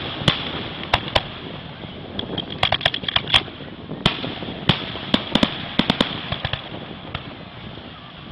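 Aerial fireworks display: an irregular string of sharp bangs and crackles from bursting shells, thickest about three seconds in and again between five and six and a half seconds.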